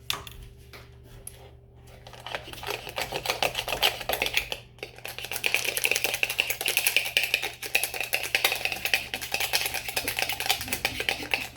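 Slime mixture being stirred quickly in a container: a fast run of rapid clicking, scraping strokes that starts about two seconds in and grows louder midway, as the glue and activator are mixed.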